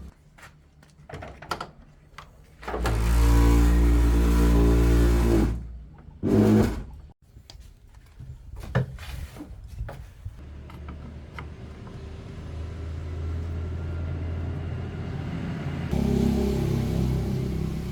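A few clicks and knocks, then a car engine revs loudly for about three seconds and again briefly. It then settles into a steady run that picks up a little near the end.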